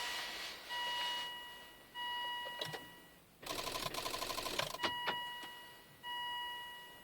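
A 2000 Volvo V70 2.5 TDI failing to start: about halfway through, a burst of rapid clicking, roughly a dozen clicks in just over a second, with no cranking, the chatter typical of a starter solenoid or relay on low battery voltage. Around it, a dashboard warning chime repeats about every 1.2 s, each chime fading out, with a few single clicks between.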